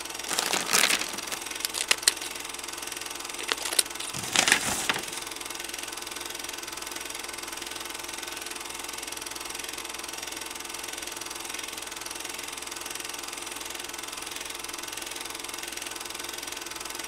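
Steady mechanical whirr and hiss with a hum underneath, broken by two loud rushing bursts within the first five seconds.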